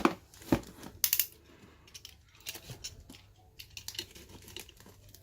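Handling noise: scattered, irregular light clicks and taps, the sharpest about half a second and a second in, as a boxed mechanical keyboard is picked up and handled.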